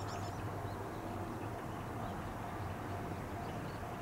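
Steady outdoor background noise with a low hum, and a few short high bird chirps right at the start.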